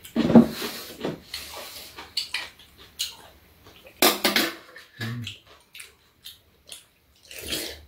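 Close-up eating sounds: metal spoons and chopsticks scraping and clinking in bowls, with wet slurping of potato sujebi soup in irregular bursts, the loudest near the start and about four seconds in.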